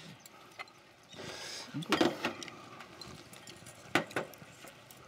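Eating at a cast-iron cauldron-lid griddle: scattered clicks and clatters of metal chopsticks and tongs against the lid and dishes, the loudest about two seconds in and a sharp knock about four seconds in.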